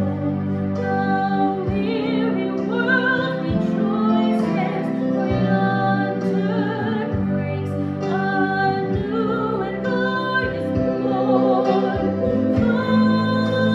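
Music: a solo voice singing sustained, vibrato-laden notes over instrumental accompaniment with held low notes.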